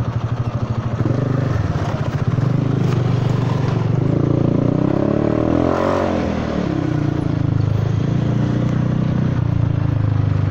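Honda Forza 300 scooter's single-cylinder engine running through a damaged exhaust, with an uneven, pulsing note that the rider likens to a two-cylinder. The engine note rises and falls about halfway through.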